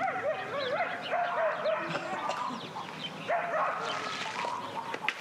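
Rural yard ambience: a dog yapping in quick short cries, with birds chirping behind.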